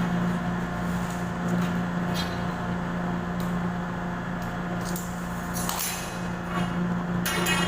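A steady low mechanical hum, with scattered short clicks and knocks of work being done, several of them near the end.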